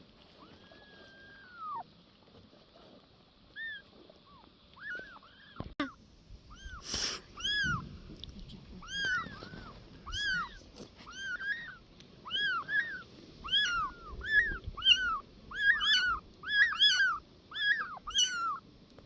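A small animal or bird giving short, high, arching calls over and over, sparse at first and then coming every half second or so and growing louder toward the end. A sharp click and a brief hiss come a little before the calls pick up.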